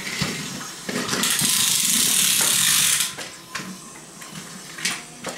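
Small toy train's geared motor running with a ratcheting whir and clicks, with a loud steady hiss for about two seconds starting a second in.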